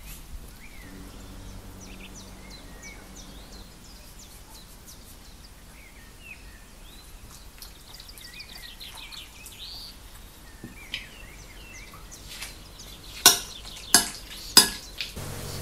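Birds chirping faintly in the background, then three sharp clinks of a metal spoon against a ceramic bowl about two-thirds of a second apart near the end, as chicken is stirred in its marinade.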